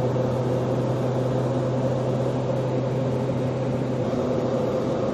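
Steady drone of a turboprop airliner's engines and propellers in flight, heard inside the cabin: an unbroken low hum with a higher steady tone over it.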